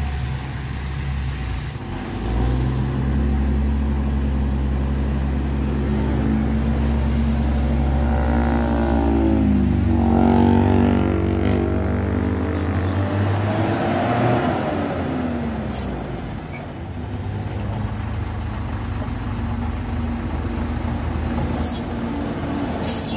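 Isuzu Giga truck's diesel engine labouring up a steep, rain-wet grade, held at a steady drone. In the middle it revs up and drops back twice, with the pitch climbing and then falling.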